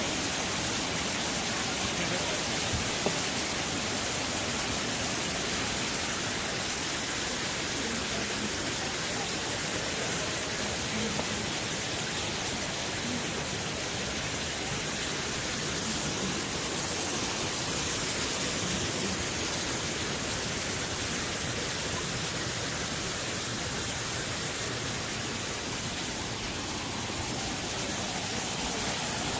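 Steady rushing hiss of falling water from the pool's rock waterfall and fountain jet.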